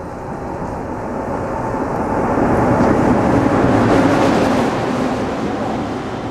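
Freight train hauled by a JR Freight EF210 electric locomotive passing through the station without stopping. The rumble of the train builds to its loudest about four seconds in and then eases off.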